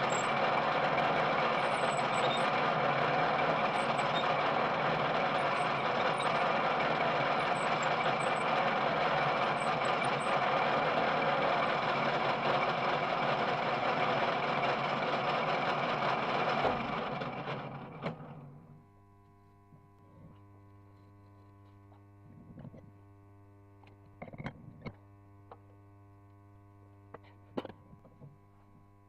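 Metal lathe running steadily under power, then switched off about 17 seconds in, its whir dying away over a second or two. After that comes a low steady electrical hum with a few light knocks near the end.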